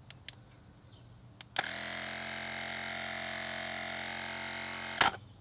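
A few faint button clicks, then the Syncwire cordless tire inflator's small electric compressor starts about a second and a half in and runs steadily for about three and a half seconds, pumping air into a car tire toward its set 47.5 psi. It cuts off abruptly with a sharp click near the end.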